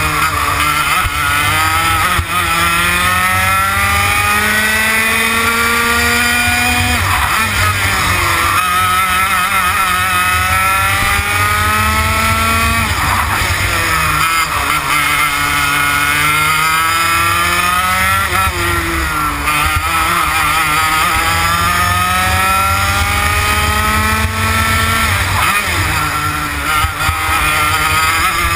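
TKM BT82 100cc two-stroke kart engine running hard, its pitch climbing for several seconds and then dropping sharply as the throttle comes off, about four times: a kart lapping, accelerating out of corners and lifting for the next.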